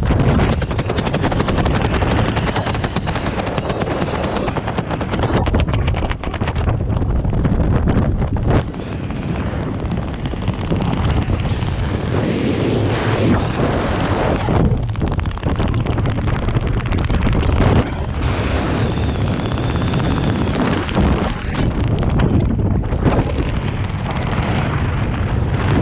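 Wind buffeting the microphone during parachute canopy flight: a loud, steady rush with rapid, irregular flutter.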